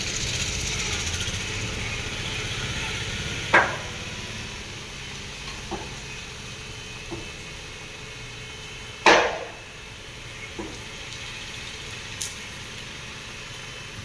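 Car-wash vehicle lift raising a car: a steady mechanical hum runs throughout, with two loud metallic clanks about three and a half and nine seconds in and a few lighter clicks between them.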